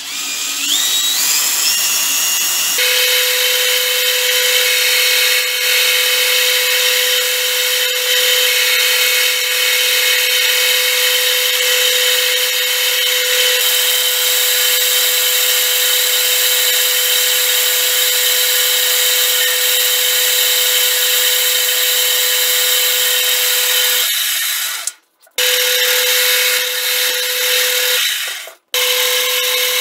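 Metal lathe running under cut while a cordless drill drives the compound-slide feed to turn a taper: a steady, multi-toned machine whine, with the drill's whine rising as it speeds up at the start. The sound breaks off briefly twice near the end.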